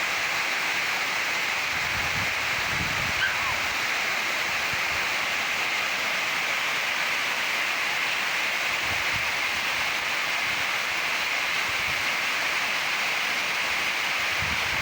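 Waterfall: water pouring and splashing in a steady, even rush, with one brief high chirp about three seconds in.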